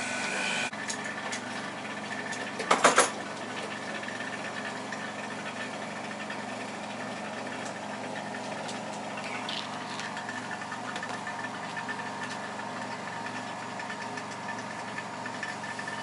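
Refrigeration vacuum pump running steadily, pulling a vacuum on the fridge's refrigerant lines to check that the soldered tubes hold. A brief clatter of a few sharp knocks about three seconds in.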